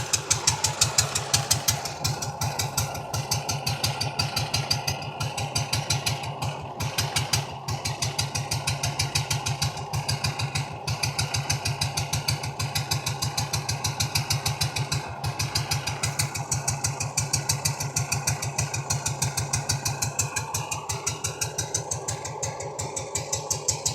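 Single-cylinder G200 four-stroke stationary engine on a home-built motorcycle, running steadily at idle with an even, regular chugging beat.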